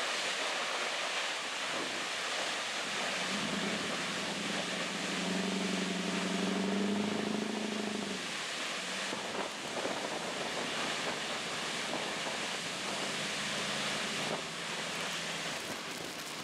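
Steady rushing of a waterfall and its spray against the bow of a tour boat, with wind buffeting the microphone. About three seconds in, the boat's engine hum swells for several seconds, rising slightly in pitch, then fades back to a faint drone.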